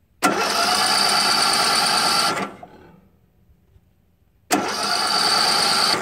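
Craftsman LT2000 riding mower's Briggs & Stratton 19.5 hp engine cranking on its electric starter in two tries, about two seconds and then about a second and a half, without catching. It turns over but won't fire since the mower hit a stump; the owner wonders whether the flywheel was sheared.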